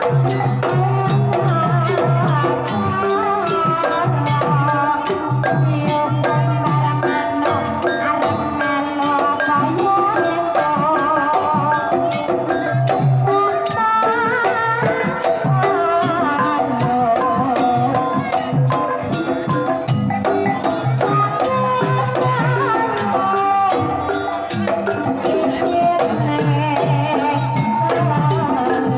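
Banyumasan gamelan music for tayub: a female sinden sings with a wavering vibrato over kendang hand-drum strokes and the ringing of gongs and bronze kettle gongs.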